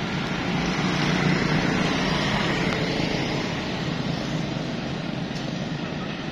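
Motor vehicle running close by with road noise, growing louder about a second in and then slowly fading.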